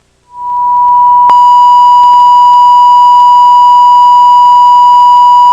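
Steady 1 kHz test tone, like a television test or sign-off tone, fading in just after the start and very loud. About a second in it turns harsher as it hits full level and distorts.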